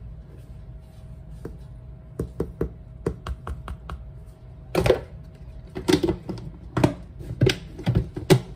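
A run of light irregular clicks and taps, then several louder knocks, from things being handled close to the microphone on a kitchen counter.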